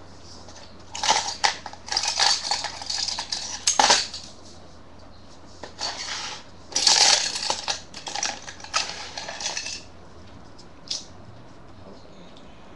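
Paper rustling and crinkling with a few light clicks and knocks as hands handle and press glued paper fingerboard deck layers, in two spells of a few seconds each.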